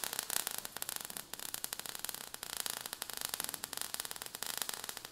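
Sparks sound effect: a steady, dense crackle and hiss of many rapid tiny clicks.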